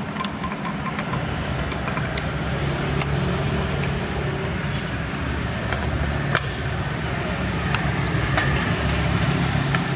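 Steady low machine hum in the background, with a few sharp clicks and clinks of metal steering-rack parts being handled, the loudest about six seconds in.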